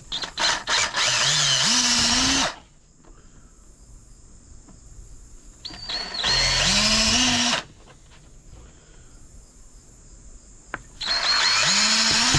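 Electric drill boring small fastening holes through a plastic panel: three bursts of a couple of seconds each, the motor rising in pitch as it spins up each time, with a few quick trigger blips just before the first.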